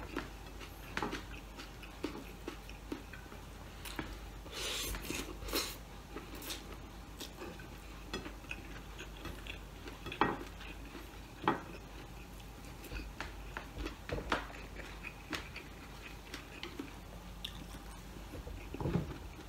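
Eating at a table: scattered light clicks and taps of fingers and a spoon on a ceramic plate, with chewing, and a denser run of sounds about five seconds in.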